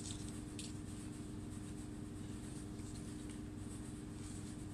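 Faint rustling and light ticks of a plastic stencil sheet being handled and laid on a wooden board, over a steady low background hum.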